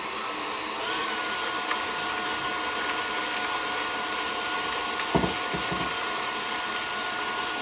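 KitchenAid tilt-head stand mixer running steadily, its beater whipping butter in a stainless steel bowl, with a steady motor whine.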